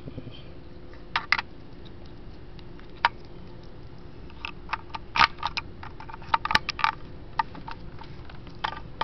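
Sharp plastic clicks and knocks from a car door's master window switch and its wiring being handled, scattered and irregular, busiest and loudest about five to seven seconds in.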